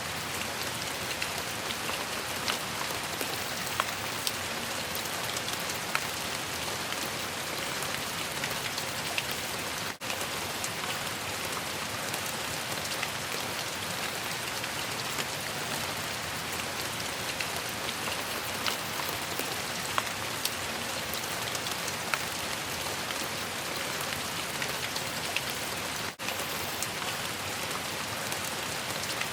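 Steady rain falling, an even hiss scattered with the small ticks of individual drops striking a surface. It cuts out for an instant twice, about ten seconds in and again near the end.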